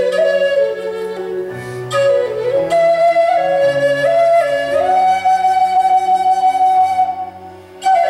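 Wooden Native American flute playing a slow melody over a low, sustained accompaniment. The melody settles on a long held note that fades out about seven seconds in, and a new note begins right at the end.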